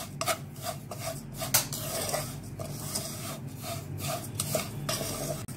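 Wooden spatula stirring and scraping broken vermicelli around a nonstick pan while it roasts in butter on low flame: irregular scraping strokes, two or three a second.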